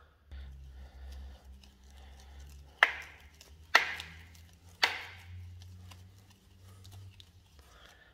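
Small plastering trowel brushing and scraping lightly over fresh decorative plaster in a final smoothing pass, with three sharp knocks of the trowel about a second apart in the middle.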